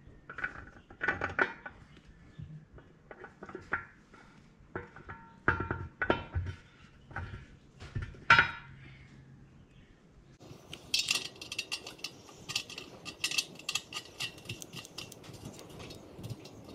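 Steel bolts and nuts clinking against a steel tractor rim as the wheel is put back together by hand: scattered separate clinks, then a denser metallic rattle from about ten seconds in.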